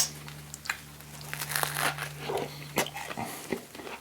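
Close-miked chewing of a toasted English muffin sandwich with vegan sausage and cheese: wet mouth smacks and clicks with soft crunching, loudest around the middle.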